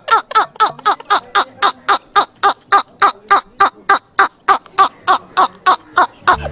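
A man laughing hard in a fast, even run of high-pitched 'ha' sounds, about four a second, without a pause for breath.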